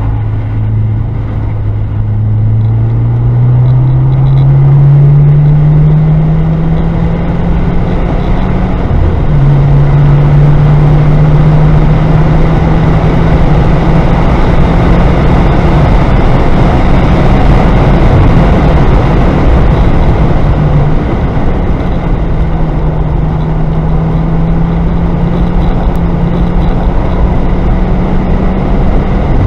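Car engine under hard acceleration, heard from inside the cabin over heavy road and wind noise. Its pitch rises steadily, drops suddenly about nine seconds in at an upshift, then holds and climbs again near the end.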